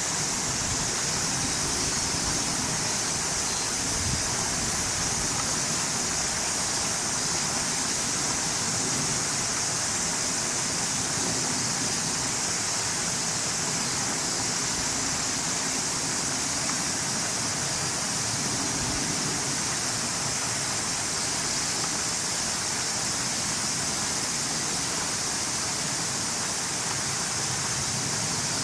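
A steady, even hiss with no distinct events, strongest high up, holding at one level throughout.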